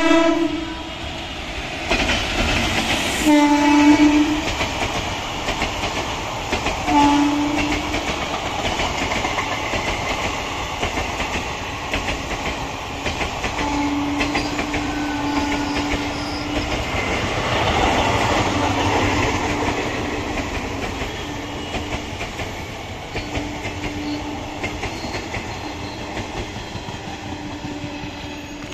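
Indian Railways WAP-4 electric locomotive's horn sounding at the start and again about three seconds in, then the Mithila Express coaches running past at speed, wheels clattering over the rail joints. The rolling noise fades toward the end as the train moves away.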